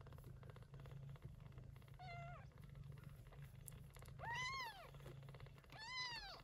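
Persian chinchilla shorthair cat meowing three times, about two seconds apart: short high-pitched meows, the first falling in pitch, the last two rising and falling and louder.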